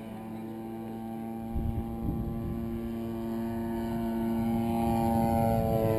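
Radio-controlled model airplane's engine droning at a steady pitch, growing steadily louder and rising slightly in pitch near the end. Wind buffets the microphone about a second and a half in.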